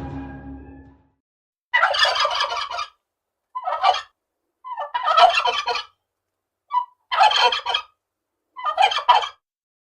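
Turkey toms gobbling: five rapid, rattling gobbles about a second apart, with a short single note between the third and fourth.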